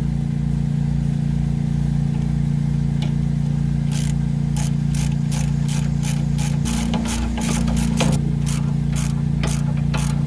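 A ratchet wrench clicking in short, even strokes, about three clicks a second starting a few seconds in, as it tightens the nut on a sway bar link. A steady low hum runs underneath throughout.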